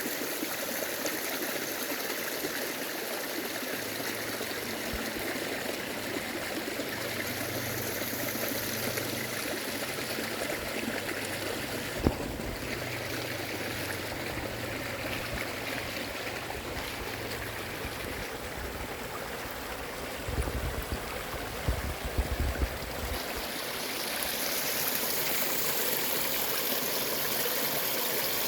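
Mountain stream babbling steadily over rocks. A single sharp click comes about twelve seconds in, and a few low thumps follow about twenty seconds in.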